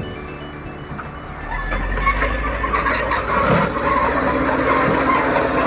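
Caterpillar D4H bulldozer working: its diesel engine rumbles and grows louder about a second and a half in, with track and metal clatter and a thin, faint whine rising in pitch.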